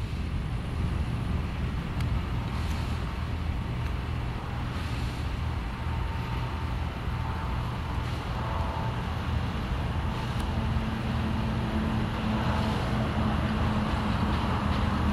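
Cessna Citation II's twin Pratt & Whitney JT15D turbofans on landing approach: a steady distant rumble that slowly grows louder, with faint steady hums coming in about halfway through as the jet draws nearer.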